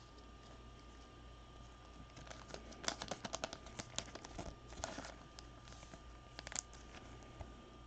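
Gloved hands handling and shuffling trading cards: a quick run of light clicks and rustles of card stock, densest about three seconds in, with a softer rustle and then a pair of clicks near the end, over a faint steady hum.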